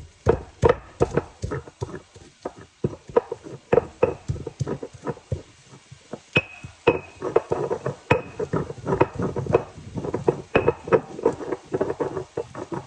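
Stone pestle (tejolote) pounding and grinding food in a volcanic-stone molcajete: irregular stone-on-stone knocks and scrapes, about three or four a second.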